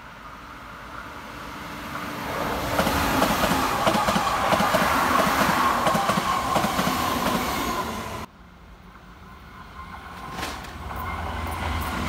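Keihan electric commuter train approaching and passing close by, its wheels clattering rhythmically over the rail joints, with a steady whine running through it. The sound cuts off suddenly about eight seconds in, and a second train is then heard approaching, growing louder near the end.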